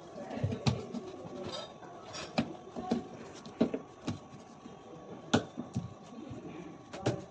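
Irregular clicks and knocks of hard parts and tools being handled and set down, several a second, with the sharpest knock a little past five seconds in.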